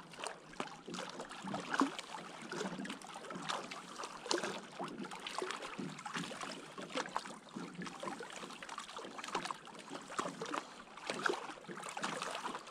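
Small waves lapping and splashing irregularly at the water's edge.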